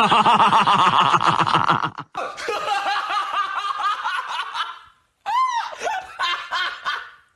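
Men laughing hard, a fast run of "ha ha" laughs. About two seconds in, after a short break, another man's laughter takes over, with higher-pitched laughs near the end.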